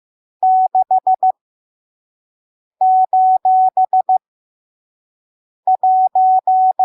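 Morse code sent as a single steady beeping tone, keyed in short dots and longer dashes at a slow 5 words per minute. The beeps come in three quick groups, each one character, with long silent gaps between them.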